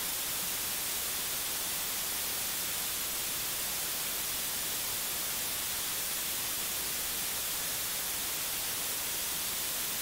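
Steady even hiss, brightest in the high end, with no speech or other events: the background noise of the recording chain.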